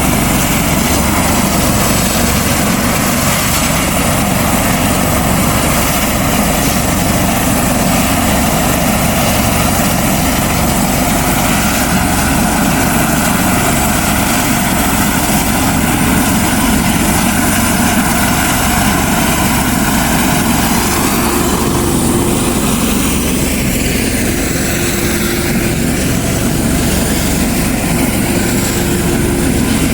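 Helicopter engine and rotor running steadily, a loud continuous noise whose tone shifts a little about two-thirds of the way through.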